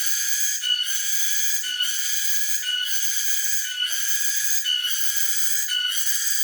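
Cicadas (tonggeret) singing: a loud, high-pitched whining buzz that pulses in a regular beat about once a second.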